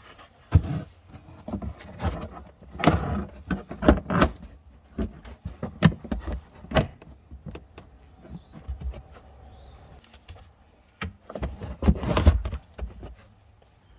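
Irregular knocks, clicks and clatter of tools and parts being handled and put away, with two louder, busier flurries about three and twelve seconds in.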